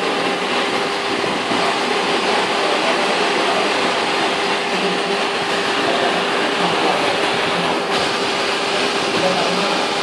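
Steady rushing noise with a constant hum, from water running through the line of a flow meter under test.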